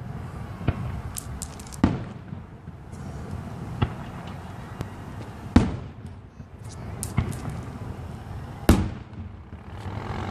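Aerial fireworks shells bursting in the sky, about six sharp booms one to two seconds apart, each trailing off briefly. The loudest come about two, five and a half and nine seconds in.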